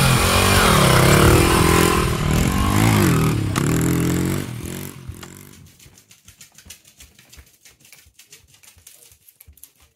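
Small dog's claws clicking on a wooden floor as it hops about, quick light taps in the second half. Before that a loud droning sound of wavering pitch fades out about four to five seconds in.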